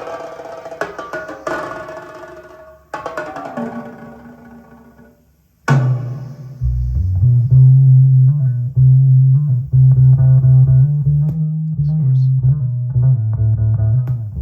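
Music played back off the tape on a Sony TC-K555ESL cassette deck switched to tape monitor. One piece fades out, and after a brief near-silent gap about six seconds in, a louder track with a heavy bass line starts.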